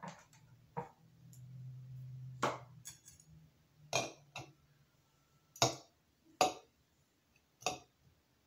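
Glass knocking and clinking on glass as a glass bowl is set down and pressed into place on a glass cake plate: about seven separate sharp clinks a second or so apart. A low steady hum runs for about a second and a half near the start.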